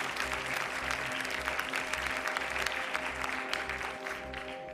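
Studio audience applauding over background music with a steady beat; the clapping dies away near the end.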